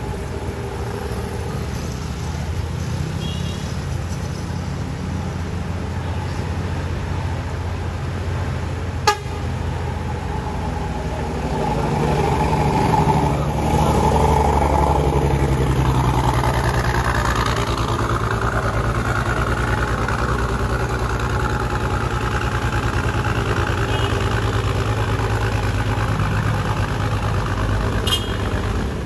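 Mercedes-Benz tour bus's diesel engine labouring up a steep hairpin under heavy load, getting louder and heavier about twelve seconds in. The engine sound is abnormal for the bus, a sign it is struggling on the climb.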